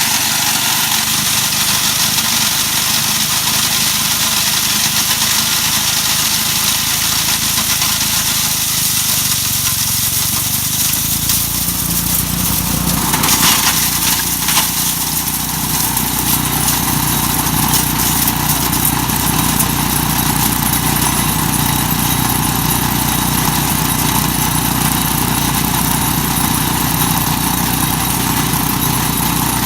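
Mighty Mac wood chipper running steadily. About halfway through its sound deepens, with a brief clatter of sharp knocks.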